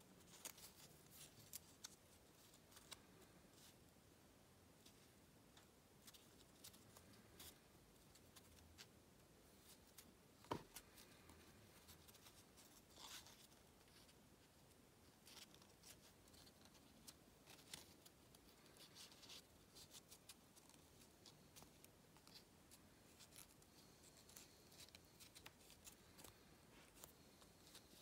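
Faint crinkling and crackling of origami paper being folded and creased by hand: scattered soft clicks and brief rustles, with one sharper tick a little over a third of the way in.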